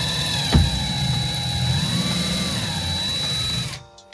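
Cordless drill running while driving a screw, its motor pitch wavering up and down as the trigger is worked, with one knock about half a second in. The motor stops suddenly just before the end.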